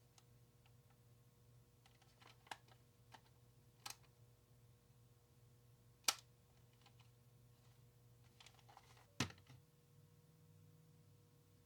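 Near silence over a faint steady hum, broken by scattered small sharp clicks and taps, the loudest about six seconds in and another about nine seconds in.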